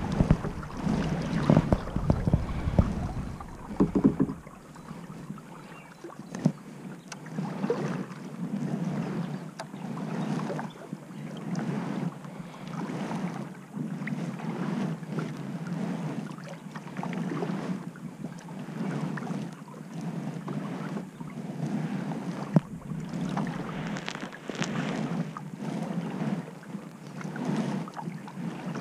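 Kayak paddle strokes in a steady rhythm of about one a second: the blades of a double-bladed paddle dip and pull through calm water on alternate sides, each stroke a soft swish and splash. Wind rumbles on the microphone for the first few seconds.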